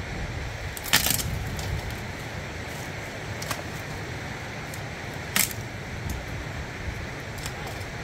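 Dry shrub branches snapping by hand, two loud sharp cracks about a second in and a little past five seconds, with a fainter snap between, over the steady rush of a river.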